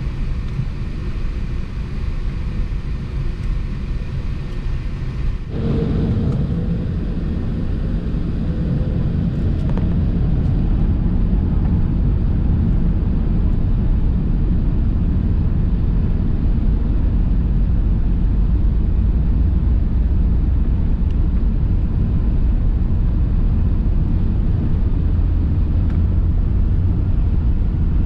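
Airbus A380 engine and airflow rumble heard inside the passenger cabin. The sound shifts abruptly about five seconds in, grows louder over the next few seconds, then holds steady.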